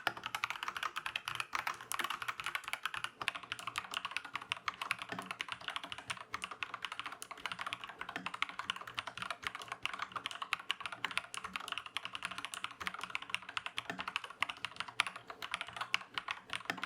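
Fast, continuous typing on an Aflion AF82 mechanical keyboard, a dense run of key clicks with a duller low clack under them, recorded through a camera's built-in microphone.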